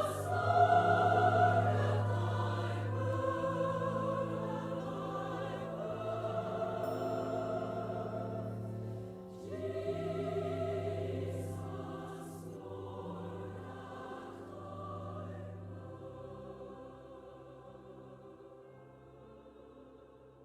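Choral music with long held chords, dipping briefly about nine seconds in, then fading out gradually over the last several seconds.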